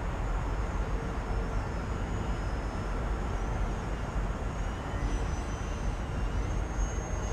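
Brushless electric motor and propeller of a small foam RC 3D aerobatic plane (Emax 2206 1500 kv motor with an APC 8×4.1 3D prop) whining overhead, the pitch rising and falling as the throttle changes, over a steady low rumble of wind on the microphone.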